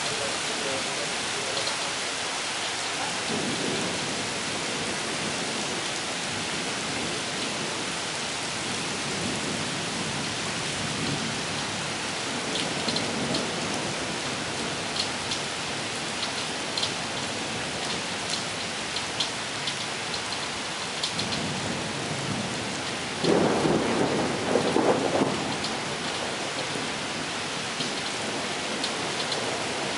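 Thunderstorm: heavy rain falling steadily on wet pavement, with a louder roll of thunder about three-quarters of the way through and fainter rumbles before it.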